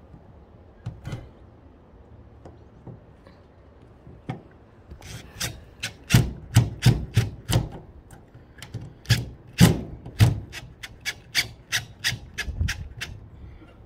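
Cordless drill-driver screwing a camera mounting plate into a fibre-cement soffit: a run of sharp clicks, about two to three a second, with scraping between, starting about five seconds in after a few faint knocks.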